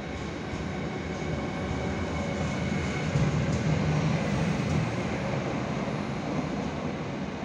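Siemens Vectron electric locomotive rolling slowly past on a shunting move, its hum and wheel-on-rail rumble swelling to a peak about three to four seconds in, then fading as it moves away.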